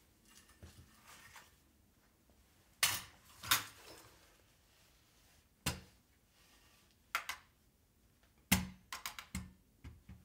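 Leitz 5008 hole punch punching holes in A4 paper: a series of sharp, short clacks at irregular intervals, some in quick pairs, the loudest two about three seconds in. Faint paper rustling comes before the first stroke.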